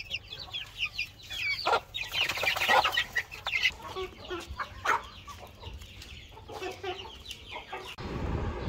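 Aseel chickens and chicks calling: many short high peeps mixed with clucks, busiest about two to three seconds in. Near the end the calls stop and a low steady hum takes over.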